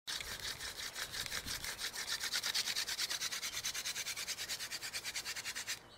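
Hand-drill fire-making: a wooden spindle twirled back and forth between the palms, rubbing and grinding on the fireboard in a rapid, even rhythm of about ten strokes a second. It stops suddenly just before the end.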